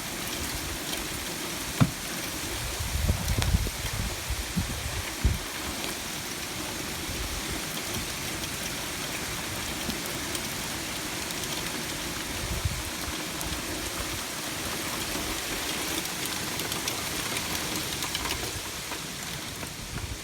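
Heavy rain and sleet from a passing squall line, a steady hiss, with gusts of wind buffeting the microphone in the first few seconds.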